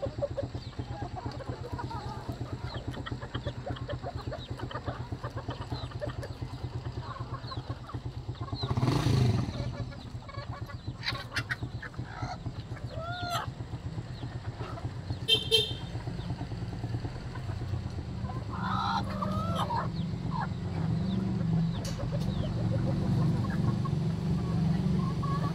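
Chickens clucking and calling now and then over the steady, rapidly pulsing drone of an engine running, which grows louder in the last several seconds. A loud rushing burst comes about nine seconds in.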